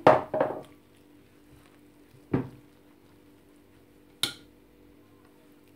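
Metal fork stirring flour in a glazed ceramic bowl, knocking against the bowl twice, about two seconds apart.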